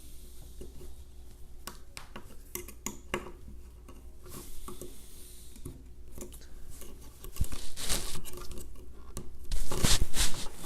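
Thread-cutting tap turned by hand in the end of a CR-10's aluminium frame extrusion: irregular metallic clicks and scrapes as it cuts. The sound grows louder and busier over the last three seconds.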